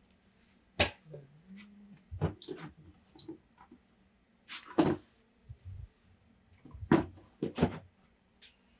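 Kitchen handling noise: about half a dozen separate knocks and clatters of containers and utensils being moved as seasoning is added to a tub of green onions, over a faint steady hum.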